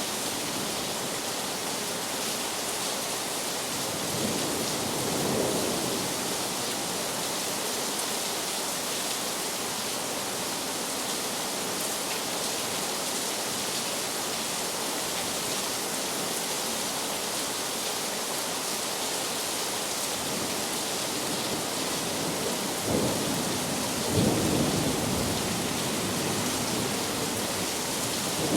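Heavy rain falling steadily as an even hiss, with distant thunder rumbling twice: once about a fifth of the way in, and again, louder, near the end.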